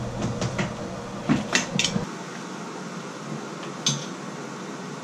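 Metal clinks and scrapes of a screwdriver prying at the chrome trim plate of a Delta shower valve: several sharp clicks in the first two seconds, then one more metallic click near four seconds.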